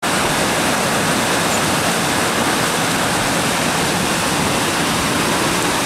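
Whitewater river rapid rushing, a steady loud churning of water.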